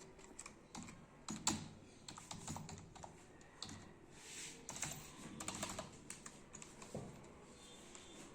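Keys of a new Dell wired chiclet keyboard being pressed and typed on to try the key travel: irregular light clicks in quick clusters.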